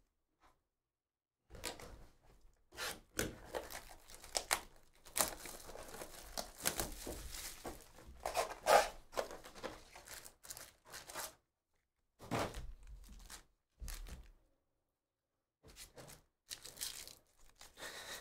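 Cardboard trading-card hobby box being opened and its foil-wrapped packs handled, with tearing and crinkling in irregular bursts; a foil card pack is torn open near the end.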